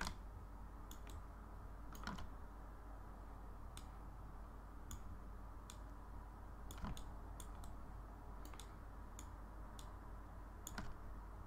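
Irregular single clicks of a computer mouse and keyboard, about twenty of them, some in quick pairs, over a faint steady hum.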